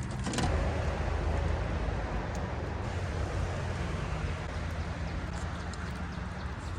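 Boat motor running steadily under a constant rush of wind and water noise.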